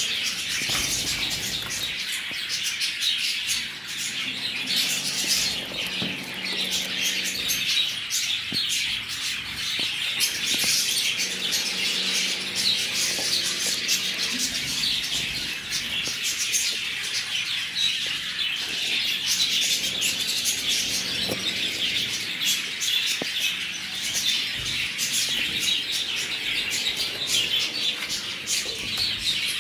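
A flock of caged Java finches (Java sparrows) chirping continuously, a dense chorus of many short, high calls overlapping, with wing flutters as birds move about.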